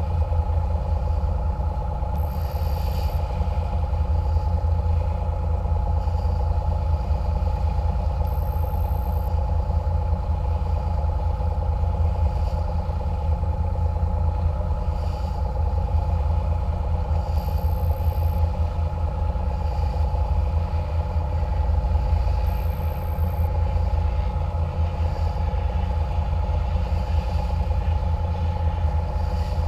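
Catamaran water bus's engines running steadily under way: a constant deep drone with a steady hum above it, unchanging in pitch.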